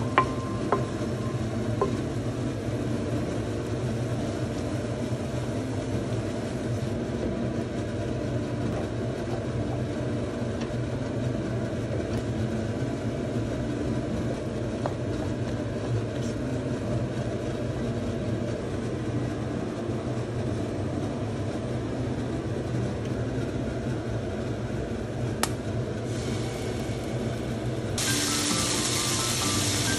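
Soft background music, with a few sharp clicks of a wooden spatula against the pan near the start. About two seconds from the end, olive oil, soy sauce and perilla oil start sizzling in a hot frying pan, louder than the rest.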